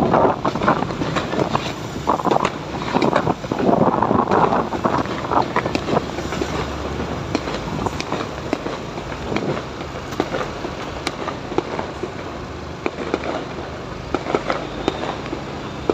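Fireworks popping and crackling in rapid, irregular bursts, over the rushing of wind and traffic noise on a phone microphone carried on a moving motorcycle. The rushing is heaviest in the first few seconds.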